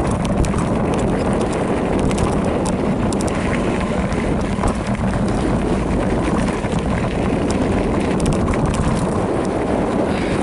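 Wind buffeting the microphone over the rumble of a Specialized Rockhopper mountain bike rolling fast down a rocky dirt trail, with scattered small clicks and clatters from gravel and the bike.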